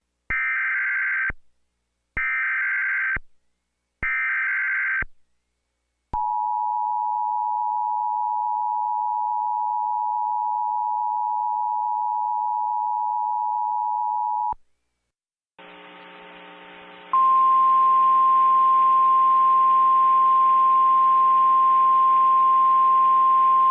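Emergency Alert System tones: three short bursts of the digital SAME header, each about a second long, then the steady two-tone EAS attention signal for about eight seconds. After a brief gap a low buzzing hum starts, and a single steady tone joins it about 17 seconds in.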